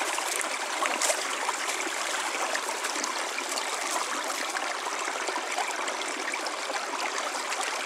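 Small rocky woodland stream running over stones and small drops, a steady even rush of water.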